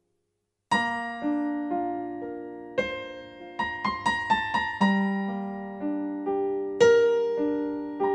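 Piano music: single notes and chords struck and left to ring and fade, starting under a second in after silence, with a quicker run of notes around the middle.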